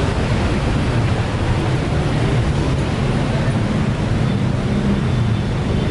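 Steady street traffic: cars and trucks driving past on a busy city road, a continuous low rumble of engines and tyres.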